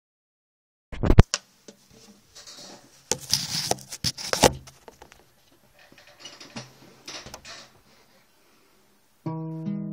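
Knocks, bumps and rustling from the camera being handled and moved into place, loudest in the first few seconds. Near the end an acoustic guitar starts playing, picking a run of sustained notes.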